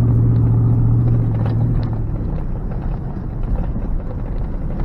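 Truck engine running steadily, heard from inside the cab, then easing off about a second and a half in, leaving the rumble of tyres on a dirt road with a few light knocks.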